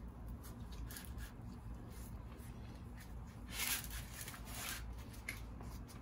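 Gloved hands rubbing and shifting a car's rear suspension trailing arm as it is picked up and turned, with faint clicks and two brief scuffs about three and a half and four and a half seconds in.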